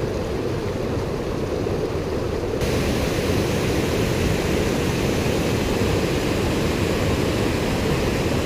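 Water spilling over a low creek weir: a steady, loud rushing of falling and churning water. It grows louder and hissier about two and a half seconds in.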